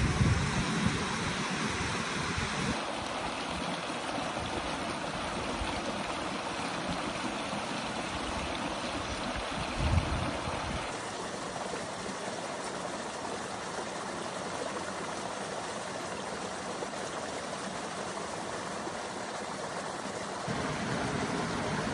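A waterfall pouring into a rock pool, then a shallow mountain stream running over rocks: a steady rush of water, deeper at first and changing in tone a few times. One brief low thump just before ten seconds in.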